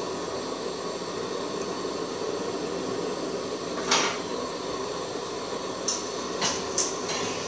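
A plate knocks sharply against an aluminium cooking pot about four seconds in, followed by a few lighter clicks of kitchenware, over a steady hiss from the pot on the stove.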